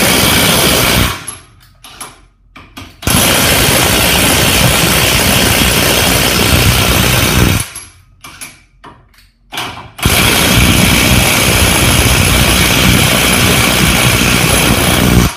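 Hitachi WR18DBDL2 18V brushless cordless impact wrench hammering on a bolt in reverse, undoing it, in three long runs: one stopping about a second in, one of about four and a half seconds, and one of about five seconds. Small clicks of the socket and tool being handled come in the pauses between runs.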